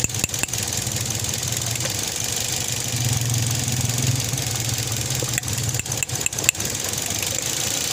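Toyota Vios four-cylinder petrol engine idling steadily, heard with the hood open, with a few sharp clicks a little past the middle. The car is reported to misfire once the engine is hot.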